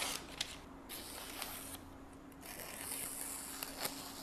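Freshly sharpened 440C knife blade slicing through a sheet of glossy magazine paper: soft hissing paper rustles in three strokes, with a small tick about half a second in. The paper cuts cleanly, the sign of a sharp edge.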